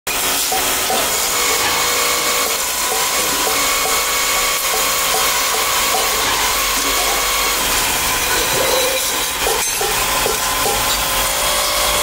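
Metal lathe spinning a kettle lid while a hand-held cutting tool scrapes its surface: a steady hiss with a faint, regular tick.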